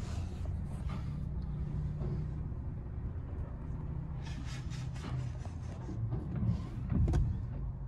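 Heard from inside a car's cabin in a tunnel car wash: a steady low rumble, with hissing bursts of water spray against the windshield several times, and a louder bump near the end.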